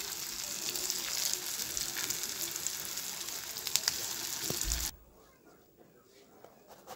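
Pieces of dhoka sizzling and crackling as they fry in hot oil in a kadhai, with a dull knock just before the sizzle cuts off abruptly about five seconds in; a quiet room follows.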